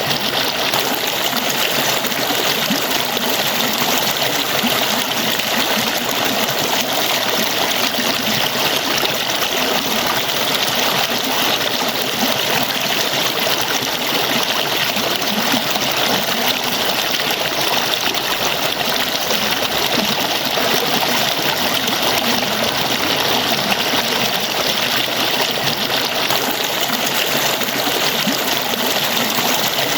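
Water falling and splashing steadily, a continuous even rush with no change in level.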